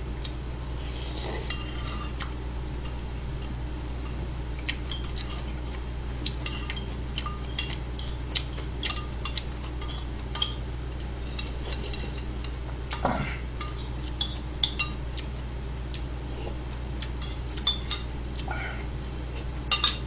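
Metal spoon clinking against a ceramic bowl during eating: scattered short ringing clinks, with one louder knock about 13 seconds in, over a steady low hum.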